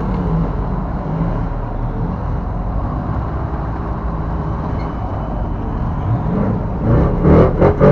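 Vehicle engines running steadily at an off-road mud pit, heard from inside a truck cab. Music comes in about seven seconds in.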